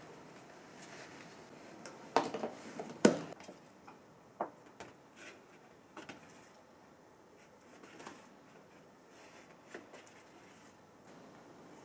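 Hands kneading and squeezing wet bread dough in a plastic food container on a stainless-steel counter: soft sticky squishes with scattered clicks and knocks of the container. The loudest knocks come about two to three seconds in.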